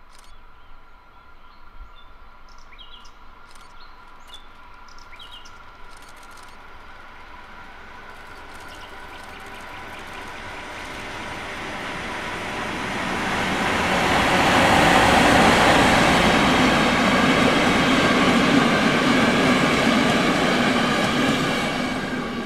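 A Deutsche Reichsbahn class 211 electric locomotive hauling passenger coaches approaches and passes close by: the rolling rush of wheels on rail swells from about halfway, is loudest for several seconds, and begins to fade near the end. Birds chirp in the first few seconds.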